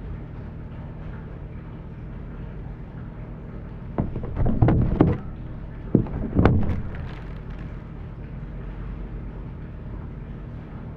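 Knocking and clattering of plastic spice packets being handled on a steel worktop, in two short bursts about four and six seconds in, over a steady low hum.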